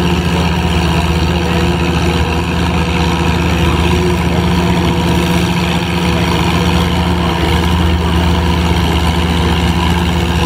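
1952 Oliver 77 tractor's six-cylinder engine running under load at a steady pitch while pulling a weight-transfer sled.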